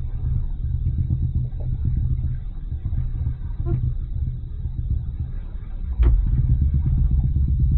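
Towboat's engine running underway, a steady low rumble that gets suddenly louder about six seconds in, with a click at that moment.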